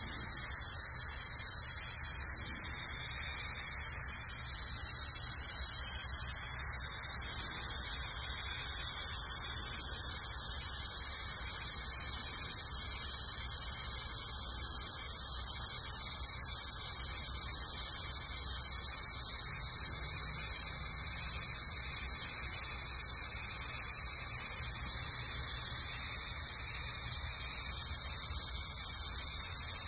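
Small mini jet touch-up spray gun hissing steadily on compressed air as it lays down the first coat of paint on a small repair.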